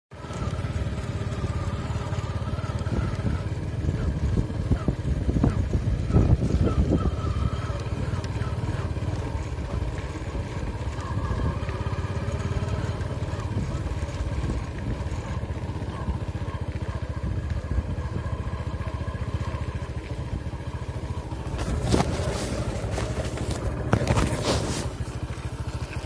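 Motorcycle engine running steadily as the bike is ridden along a dirt track, its note wavering a little with the throttle. A few sharp knocks and scrapes come near the end.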